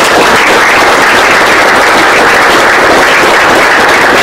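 Audience applauding loudly, a dense, steady clapping from many hands.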